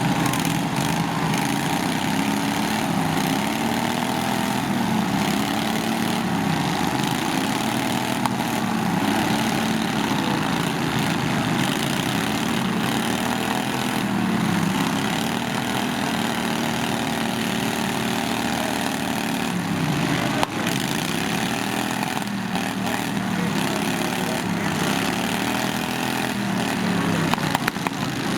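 Small lawn tractor engines running and revving, their pitch rising and falling over and over. There is a single sharp knock about twenty seconds in.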